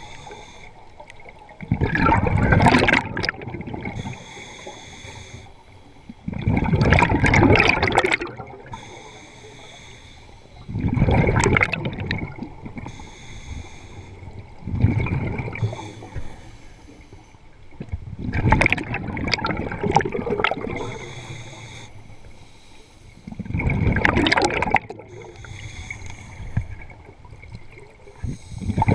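Scuba diver's regulator breathing underwater: a gushing burst of exhaled bubbles every four to five seconds, each lasting a second or two, with a fainter hiss between breaths.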